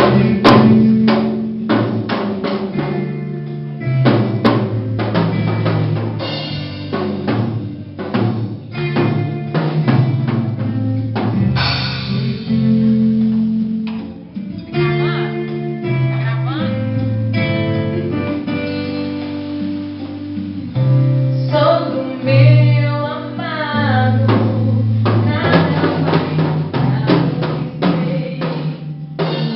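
A song with a drum kit, bass and guitar, and a singing voice.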